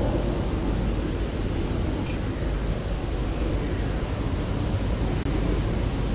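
Wind buffeting the microphone outdoors: a steady low rumble over a constant background hiss, with no distinct events.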